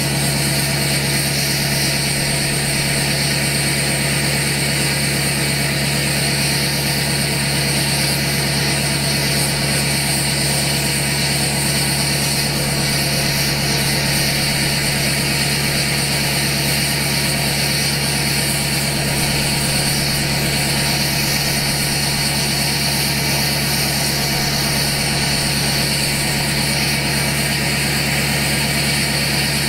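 LML Duramax 6.6-litre turbo-diesel V8 idling steadily after a cold start, through a 5-inch straight pipe that exits at an 8-inch axle-dump tip, with a deep, even exhaust drone.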